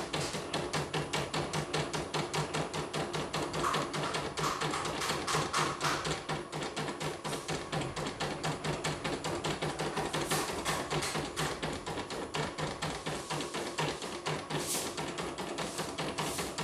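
Computerized embroidery machine stitching, its needle bar clattering in a rapid, even ticking rhythm.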